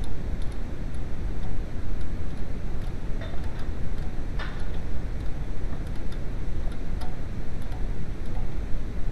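Light metallic clicks and ticks of combination wrenches on a rear brake caliper's bolts, over a steady low rumble.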